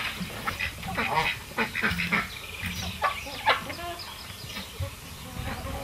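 Domestic fowl calling in a run of short, irregular calls, with one sharp peak about three and a half seconds in.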